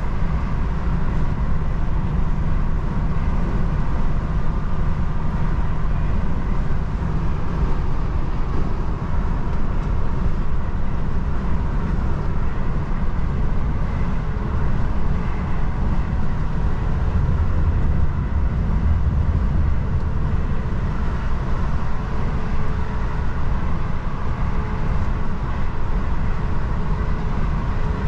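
DAF XF truck driving along: steady diesel engine drone with tyre and road noise. The low rumble swells for a few seconds about two-thirds of the way through.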